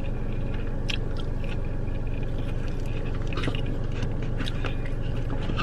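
A person chewing a mouthful of fast food close to the microphone, with short wet clicks and smacks scattered through, over a steady low hum in the car's cabin.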